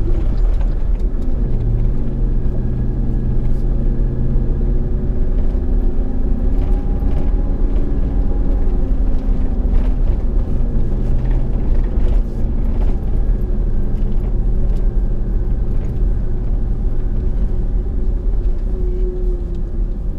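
Dodge Ram Power Wagon's Hemi V8 running at a slowly varying low speed, with tyres rumbling on a gravel road, heard from inside the cab. Scattered clicks and rattles come through now and then.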